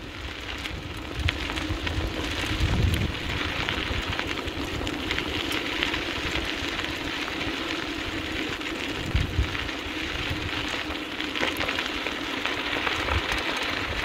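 Two sled dogs pulling a dryland rig along a dirt-and-gravel trail: a steady gritty crunch of wheels and paws on the gravel, with a few dull thumps along the way.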